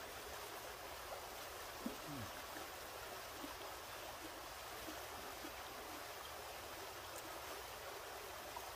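A creek's water running with a steady, faint rush.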